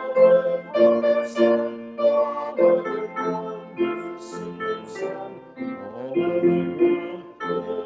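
Hymn music on a keyboard instrument, with sustained chords changing every half second to a second and voices singing along.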